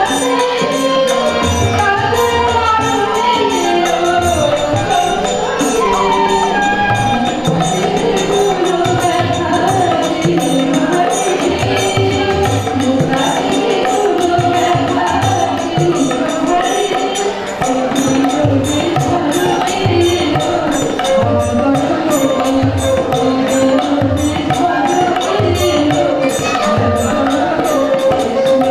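Woman singing a song into a microphone to her own harmonium, with drum and jingling percussion keeping a steady beat.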